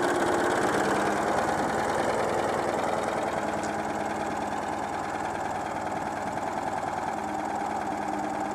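Citroën 2CV's air-cooled flat-twin engine idling steadily. The idle is a little unstable because the engine is still cold after a fresh carburettor idle-mixture adjustment.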